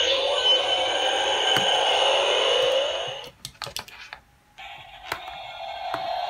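Electronic sound effects from the built-in speakers of Ultraman DX toy figures. A loud sweeping effect plays for about three seconds and stops. A few plastic button clicks follow, then a brief pause, and about four and a half seconds in another electronic sound starts from a figure's speaker.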